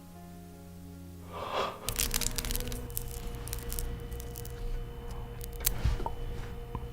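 Background music for about the first second and a half, then close-miked crackling and clicking of food being handled and eaten, over a low hum.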